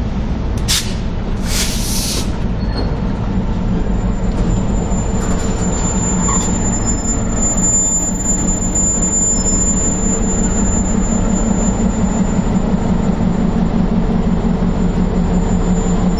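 Diesel freight locomotives running close by: a loud, steady low engine drone with a throbbing rumble. Two brief hisses sound within the first two seconds.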